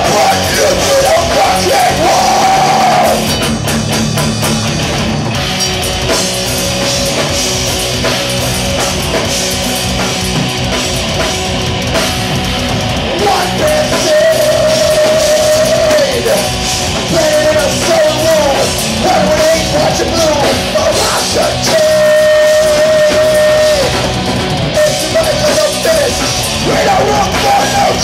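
A rock band playing loud and heavy, with drums, and a singer holding long notes for the first few seconds and again from about halfway through.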